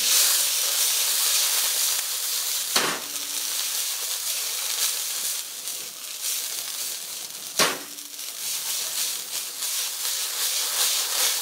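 Shredded cabbage, carrot and jícama with soy sauce sizzling in very hot oil as they are stir-fried and tossed in a wok. There are two sharp knocks, about three and eight seconds in, and the crackling quickens near the end.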